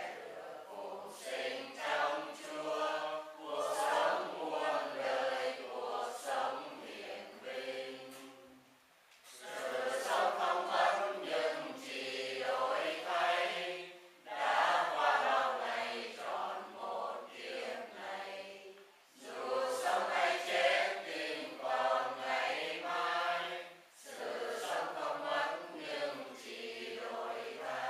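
A congregation chanting together in unison, in several phrases of about five seconds separated by brief pauses for breath.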